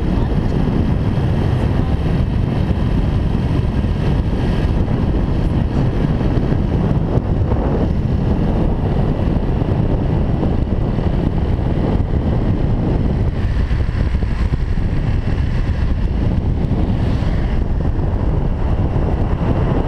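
Heavy, steady wind buffeting on the camera microphone of a motorbike riding at road speed, with the bike's running noise underneath.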